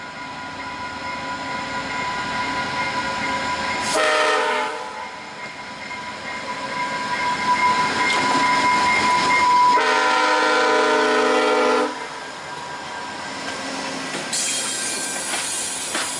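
A VIA Rail passenger locomotive's Nathan K5LA air horn sounds for a grade crossing, with a short blast about four seconds in and a long blast about ten seconds in, over the rising rumble of the approaching train. Near the end, the train's cars clatter past with a high rushing hiss.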